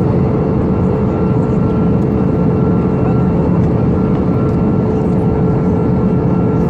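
Cabin noise of an Airbus A321 at cruise, heard from a window seat over the wing: the steady, even rush of engines and airflow, with a constant hum running through it.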